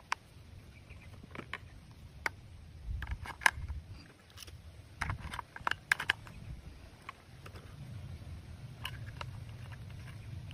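Plastic toy gun being handled while batteries are fitted into its battery compartment: scattered light clicks, taps and scrapes of plastic, a couple of them sharper near the middle.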